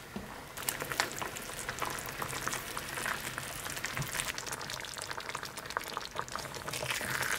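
Cream mushroom sauce bubbling in a frying pan as it simmers down to thicken, with a silicone spatula stirring through it. There is a constant patter of small pops and ticks.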